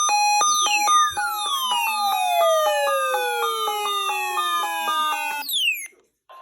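Electronic jingle: rapid beeping tones hopping between a few pitches over a long falling whistle that glides from high to low. It ends in a quick downward sweep and then cuts off abruptly.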